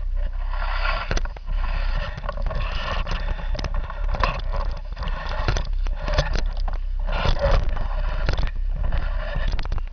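Handling noise on a pole camera's built-in microphone as its telescopic pole is raised: irregular scraping and rubbing with many sharp clicks over a steady low rumble.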